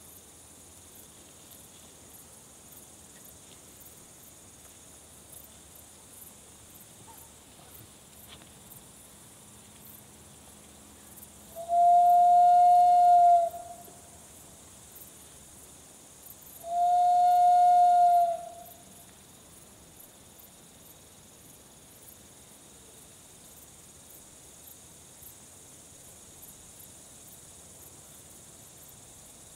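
Faint steady chirping of crickets, broken twice near the middle by a loud, steady, whistle-like tone, each lasting about a second and a half, about five seconds apart.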